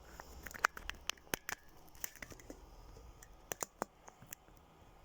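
Faint, scattered small clicks and taps, about a dozen over a few seconds, the sound of objects being handled close to the microphone.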